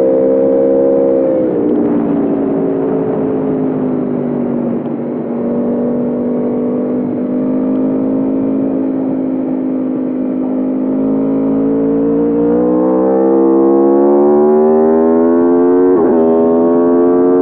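2021 Aprilia RSV4 Factory's V4 engine under way: the note drops about a second and a half in, holds steady, then revs up from about twelve seconds, with a sharp dip and climb just before the end like a quick upshift.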